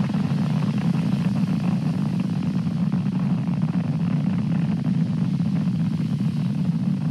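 Falcon 9 first stage's nine Merlin engines during ascent, heard as a steady, deep rumble.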